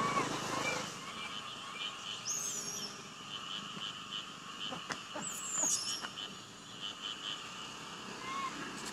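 Outdoor ambience of insects chirping in a steady high band of short pulses, with two brief high-pitched sweeping calls, about two and a half and five and a half seconds in.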